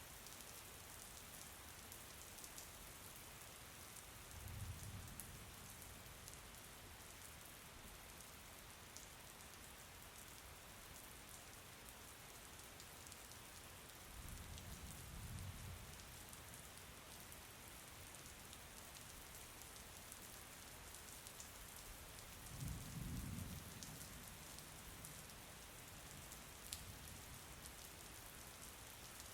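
Steady, faint rain falling, with scattered drops ticking. Three brief low rumbles come about five, fifteen and twenty-three seconds in.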